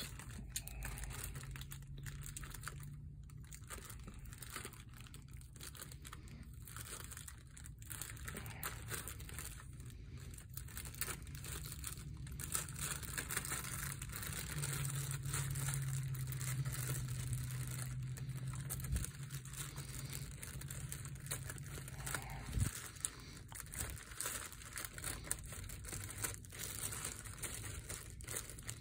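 Thin clear plastic polybag crinkling and rustling as it is handled and cut open along its side with scissors. A steady low hum sits underneath for stretches of the time.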